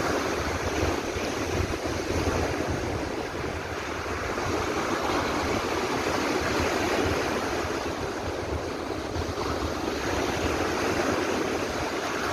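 Big lake waves breaking and washing over the shore in strong wind, in slow swells, with gusts buffeting the microphone.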